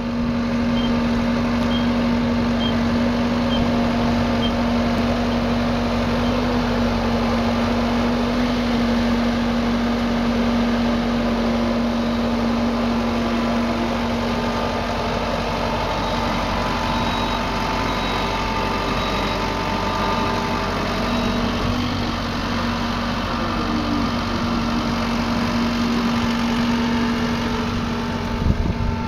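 Tractor diesel engine running steadily under load while pulling a seed drill through the field, with its pitch shifting a little midway as it passes close. A few faint, evenly spaced high beeps sound in the first few seconds, and a couple of knocks come near the end.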